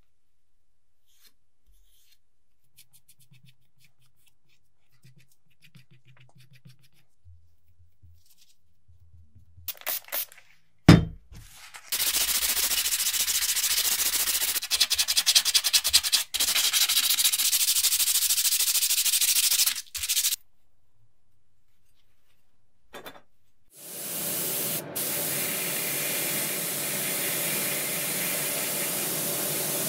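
Sandpaper rubbing by hand on a small cast metal frame for about eight seconds, after a sharp knock. After a pause, a paint spray gun hisses steadily, spraying two-component paint.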